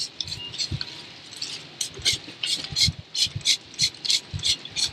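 Hand trigger spray bottle spraying ACF50 anti-corrosion fluid in a quick series of short hissing squirts, about three a second, stronger from about two seconds in, with a few soft low knocks.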